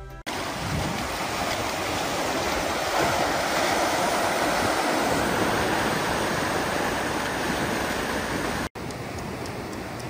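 Ocean surf breaking and washing up a sandy, rocky beach: a steady rush of water. About nine seconds in it cuts out for an instant and comes back a little quieter.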